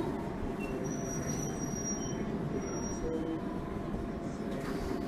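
London Underground train running, heard from inside the carriage: a steady rumble with a few faint, thin, high squeals from the wheels.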